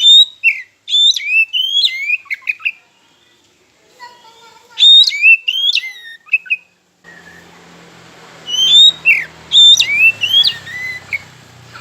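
Oriental magpie-robin (kacer) singing: three phrases of loud, clear whistled notes with quick rising and falling glides, separated by short pauses.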